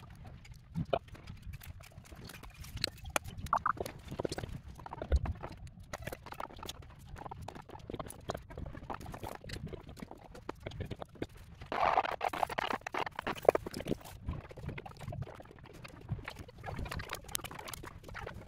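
Irregular small clicks and taps of hand-handled wires and plastic plug-in terminal connectors, with a brief louder rustle about twelve seconds in.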